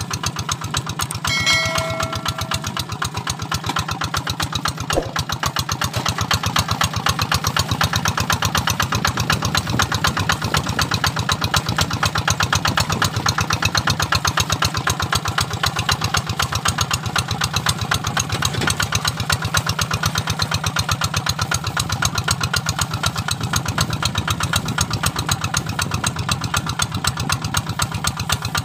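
Kubota RD 85 single-cylinder diesel on a two-wheel hand tractor running steadily under load as it pulls a moldboard plow through dry field soil, with a fast, even beat. A short ringing tone sounds about a second and a half in.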